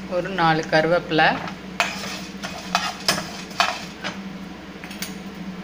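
Slotted steel spatula scraping and knocking against a frying pan while stirring roasting whole spices and curry leaves: a string of sharp scrapes and taps through the second half.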